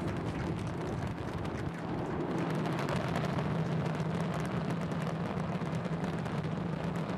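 Rocket engine noise from Starship's Super Heavy booster climbing under its 33 Raptor engines: a steady low drone with dense crackle throughout.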